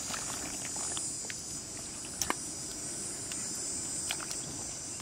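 Steady high-pitched chorus of insects, with scattered small clicks and pops over it and one sharper click about two seconds in.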